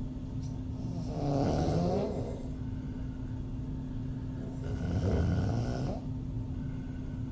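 A woman snoring with her mouth open: two snores, one about a second in and one about five seconds in, each lasting about a second and a half, over a steady low hum.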